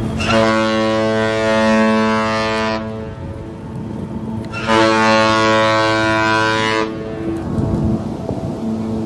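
Costa Fortuna cruise ship's horn sounding two long blasts, each a little over two seconds, with a pause of about two seconds between them.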